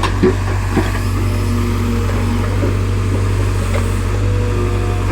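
Excavator's diesel engine running steadily at work, with a couple of short knocks in the first second.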